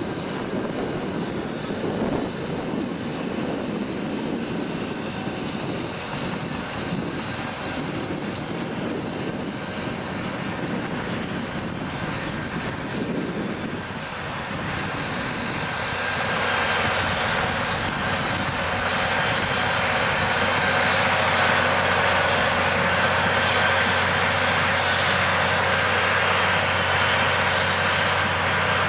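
Caterpillar D6C crawler dozer's diesel engine running steadily under load while it pushes dirt with its blade. The sound grows louder about halfway through.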